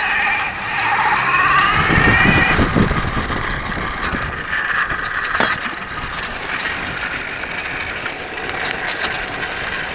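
Electric bike riding along, its motor whine rising in pitch over the first few seconds, then running steadily with the drivetrain ticking and rattling. Under it runs a strange metal pinging that sounds like metal dragging on the ground, a fault the rider is trying to trace.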